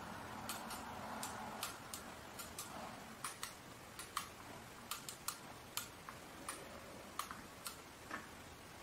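Front-panel rotary knobs of a FNIRSI-1014D oscilloscope being turned by hand, giving short detent clicks at an irregular pace of about two a second.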